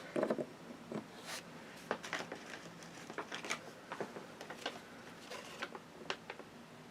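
Small plastic toy pieces and packaging being handled: a short louder knock at the very start, then scattered soft clicks and rustles.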